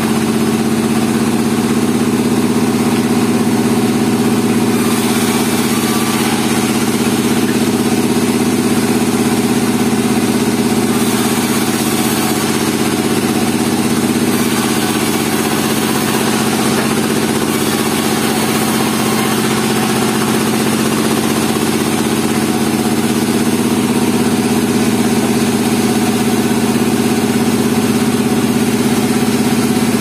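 Sawmill band saw running steadily with a constant machine hum while a pine log is fed through the blade. A brighter hiss of the blade cutting swells for a couple of seconds around five and twelve seconds in.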